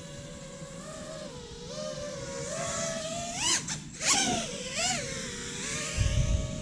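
Brushless motors and propellers of a 5-inch FPV drone whining steadily, then rising sharply in pitch as the throttle is punched, cutting out briefly about four seconds in and surging again twice, as in a power loop. A short low rumble near the end.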